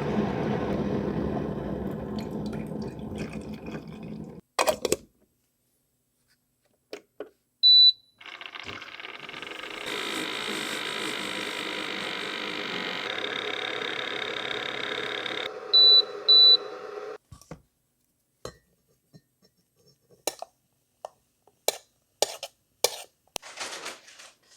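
Keurig single-cup coffee maker: a sharp beep, then about nine seconds of steady pumping and brewing as it fills the cup, two short beeps near the end of the brew, and then scattered clicks and knocks.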